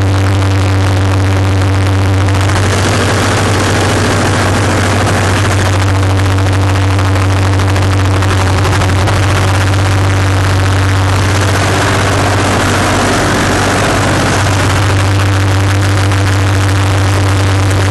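Sawdust dispenser running with a loud, steady low hum. A rushing noise swells over it twice, for a few seconds a couple of seconds in and again past the middle.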